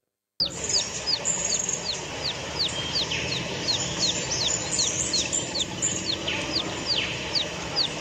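Hill myna calling: a long, even series of short high chirps, each sliding downward, about three a second.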